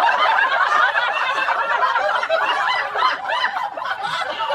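Many people laughing together, a dense crowd laugh that stops abruptly at the end.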